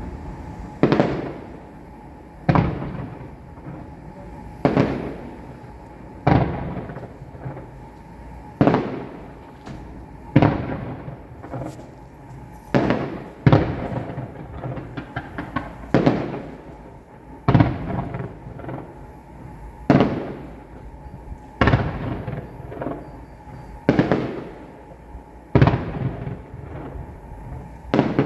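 Fireworks shells bursting one after another, a bang about every two seconds, each one fading away in a rumbling echo. There is a brief burst of crackling about halfway through.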